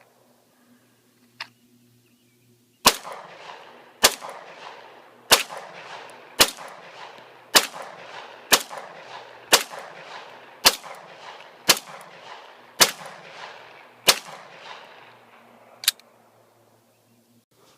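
Handgun fired about a dozen times at a steady pace of roughly one shot a second, each sharp report trailing off in an echo; the last shot is weaker.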